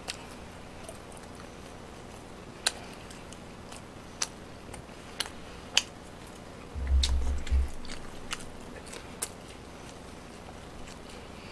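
Person chewing food close to the microphone, with several sharp clicks spread through it and a low dull thump about seven seconds in.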